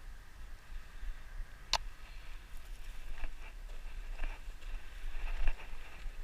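Low wind rumble on the microphone with one sharp click about two seconds in. Scattered light scuffs and knocks follow, from a hiker shifting about on loose rock and gravel.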